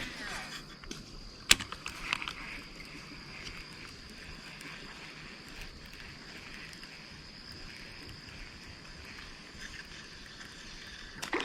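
Quiet outdoor background with a steady thin high whine, and a few sharp clicks in the first two seconds, the clearest about a second and a half in.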